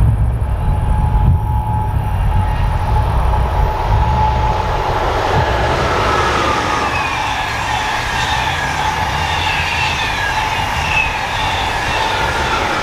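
Deutsche Bahn ICE 1 high-speed train passing at speed: a rushing noise of wheels and air builds as it comes by. Several whining tones in it slide down in pitch as the train goes past.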